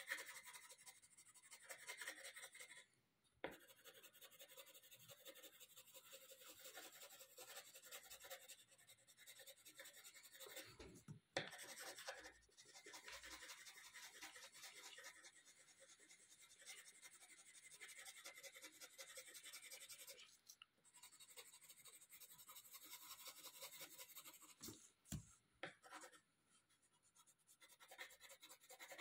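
Yellow coloured pencil scratching on paper in quick back-and-forth colouring strokes, faint, breaking off briefly a few times.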